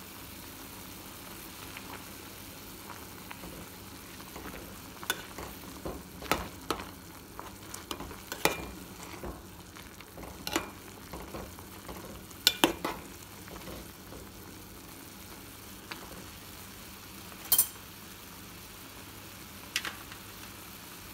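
Instant noodles and vegetables boiling in a metal pot, with a steady bubbling hiss. A utensil stirring the noodles knocks against the pot in scattered sharp clinks, most of them between about five and thirteen seconds in.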